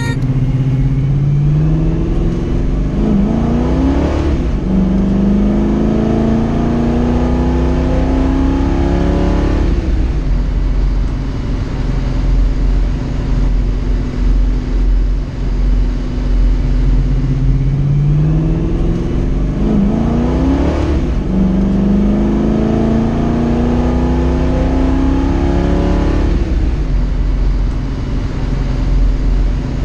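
1969 Chevrolet Camaro's engine accelerating twice: each time the pitch climbs, drops at an upshift and climbs again as the car gathers speed. Between the pulls the engine cruises under a steady low rumble of road noise.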